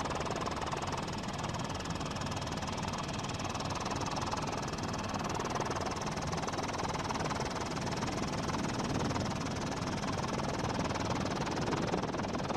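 Helicopter in flight, its engine and rotor giving a steady, unbroken drone.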